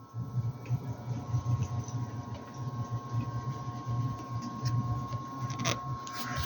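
Air conditioner outdoor unit running: a steady low hum with an uneven throb, and a thin steady whine above it. Two brief noisy rustles come near the end.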